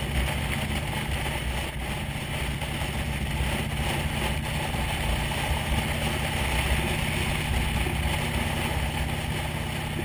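Motorcycle cruising at a steady speed: its engine running evenly under a steady rush of wind and road noise.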